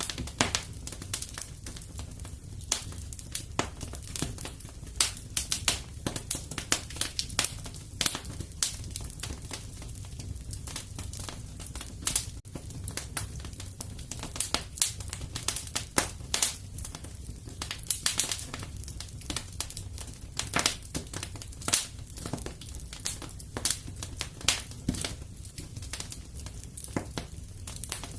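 Fireplace fire crackling, with irregular sharp pops and snaps over a steady low rumble of the burning.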